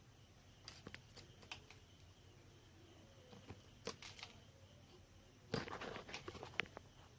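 Scattered light clicks and rustling of wires and small tools being handled while soldering an amplifier board, with a busier patch of clicks a little after halfway.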